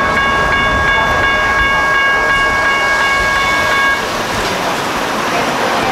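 A Siemens Duewag U2a light rail train passing over a road crossing. A steady, high-pitched tone made of several pitches sounds over the rolling noise and cuts off about four seconds in, leaving the rumble of the wheels.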